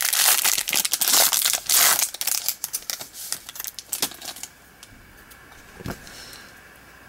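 Foil wrapper of a trading-card pack crinkling as it is handled, thinning out into a few small crackles and stopping after about four seconds. A single soft knock comes about a second before the end.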